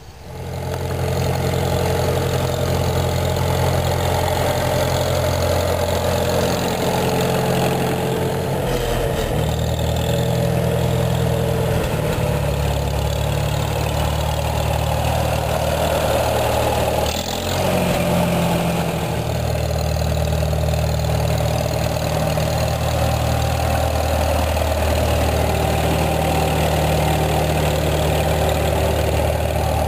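Farmall M tractor's four-cylinder gasoline engine running steadily as the tractor is driven, its note shifting a few times, with a brief dip and a click about 17 seconds in.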